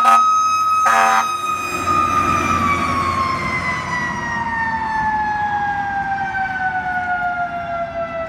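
Fire engine siren holding a steady high tone, then slowly falling in pitch over several seconds as it winds down. Two short air horn blasts come right at the start and about a second in, with the truck's engine rumbling under it as it pulls away.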